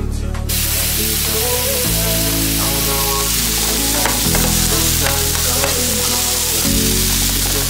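Shrimp and sliced okra sizzling in a nonstick frying pan, starting about half a second in, as a metal spoon stirs through them with a few light scrapes against the pan. Background music with steady bass chords plays underneath.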